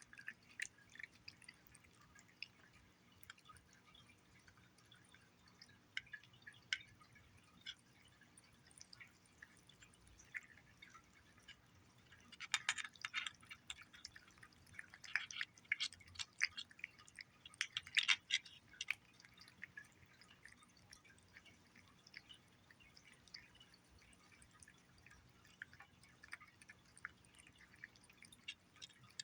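Cat eating wet paté cat food: small wet licking and chewing clicks, scattered, with denser, louder stretches of chewing in the middle.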